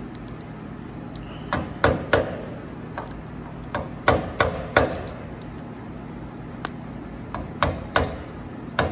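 A dozen or so sharp metal-on-metal taps with a short ring, in quick clusters of two or three: the lock-tab ears on the distributor breaker plate's nuts being knocked back up to lock the nuts.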